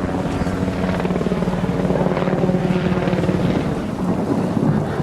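Steady mechanical drone with a rapid fluttering pulse, holding one pitch.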